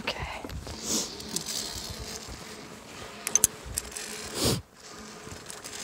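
Wind buffeting and rubbing on a handheld phone's microphone, with a few sharp clicks about three seconds in and a louder rushing rub a little after four seconds.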